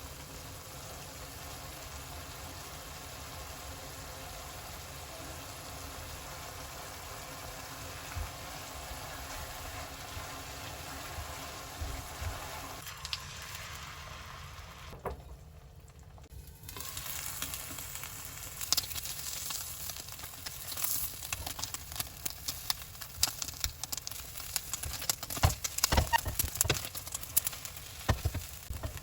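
Food frying in hot oil: a steady sizzle at first, then, after a short break, a louder, busier crackle full of sharp pops.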